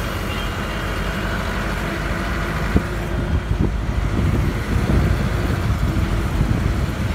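Road traffic: a steady low rumble of vehicle engines, with a sharp knock a little under three seconds in.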